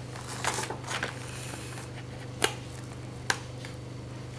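Hands working at a clear plastic figure tray while pulling off packing tape: a few light, sharp clicks of plastic and a brief faint rustle, over a steady low hum.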